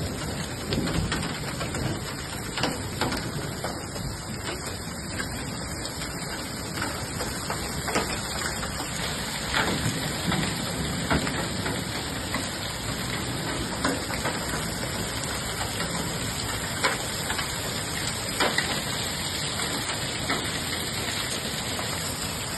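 Large hailstones and rain falling steadily in a thunderstorm, with many separate sharp knocks of hailstones striking hard surfaces at irregular intervals over the constant rush of the downpour.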